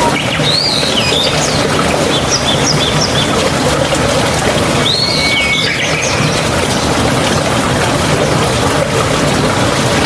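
Songbirds singing over a steady rush of flowing water: a song phrase about a second in, then a quick run of short high notes, then another phrase around five seconds in.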